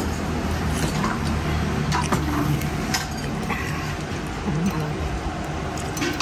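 Metal spoons and chopsticks clinking now and then against ceramic noodle bowls, a few sharp clicks over a steady low background hum.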